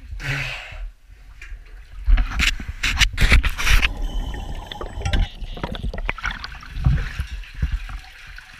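Water splashing and sloshing as a caver wades and swims through deep water in a flooded cave passage, with a cluster of sharp knocks and splashes about two to four seconds in.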